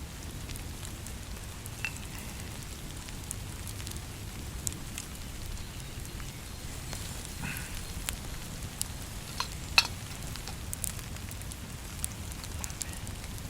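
Campfire crackling: sparse, sharp pops over a steady low background noise, the loudest pop about ten seconds in.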